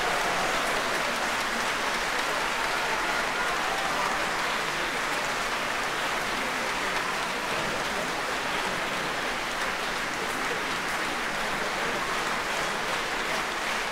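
Concert-hall audience applauding steadily.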